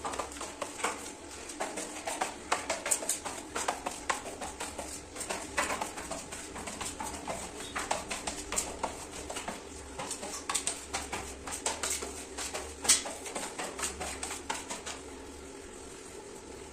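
Steel scraper blade scraping and clicking on glazed floor tiles while grout is pressed into the joints, in quick irregular strokes that die down near the end.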